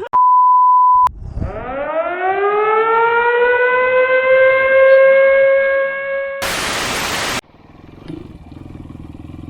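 A steady high beep of about one second, then a siren winding up in pitch and holding its wail for about five seconds, cut off by about a second of loud static hiss.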